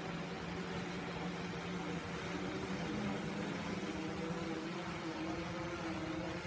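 Homemade multirotor drone hovering overhead: a steady hum of its motors and propellers, made of several held pitches that drift slightly as the motors correct, over a hiss of wind noise.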